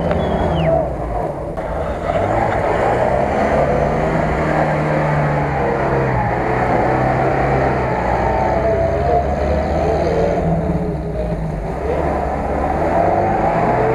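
UAZ-469 off-roader's engine working hard under load as it climbs out of a muddy ditch, the revs rising and falling.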